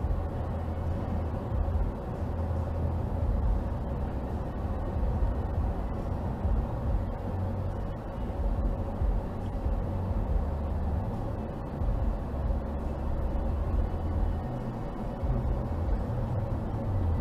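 Steady low rumble of a car's road and engine noise inside its cabin while driving, with no sharp events.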